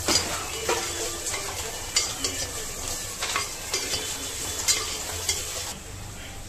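Sliced onions and ginger-garlic paste sizzling in oil in a clay pot, stirred with a perforated steel ladle that scrapes and clicks against the pot every second or so. About five and a half seconds in the stirring stops and the sizzle goes quieter.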